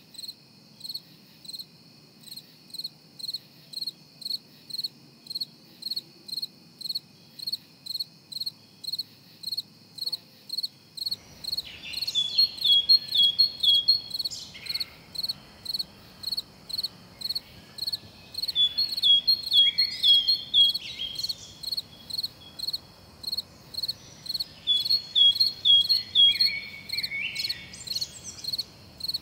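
Crickets chirping in a steady, even rhythm, a little more than one chirp a second. About eleven seconds in, a fuller background hiss comes in, and louder bursts of quicker, falling chirps join at intervals.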